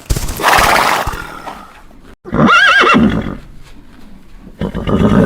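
Horse whinnying: one wavering, shaking call about two and a half seconds in, after a short noisy burst near the start.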